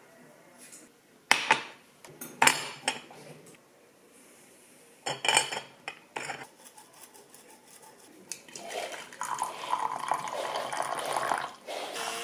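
Cups, dishes and utensils clinking: a handful of sharp clinks spread over the first six seconds, then a denser, steadier clatter and rustle in the last few seconds.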